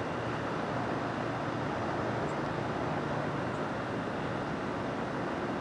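Steady distant traffic hum, an even wash of road noise with no single vehicle standing out, with a few faint short high chirps.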